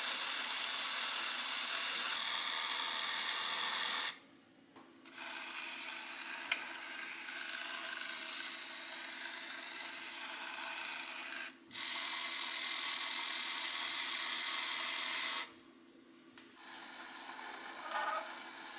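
LEGO Mindstorms EV3 motor running, turning the turret through plastic Technic gears with a steady whir. It stops and restarts three times: about four seconds in, briefly near the middle, and near sixteen seconds.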